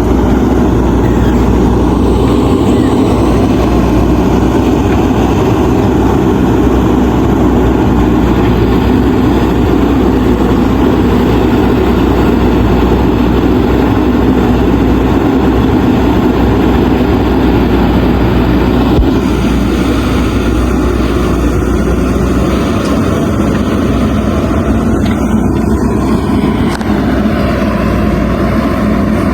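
Diesel engine of a JCB 3DX backhoe loader running steadily at working revs while it digs. The sound shifts slightly about two-thirds of the way through.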